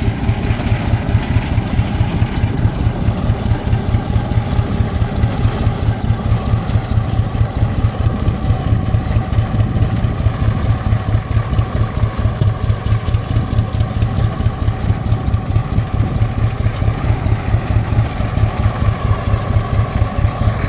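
Vintage tractor engine running steadily under load with a rapid, even exhaust beat while pulling a multi-bottom plow through the soil.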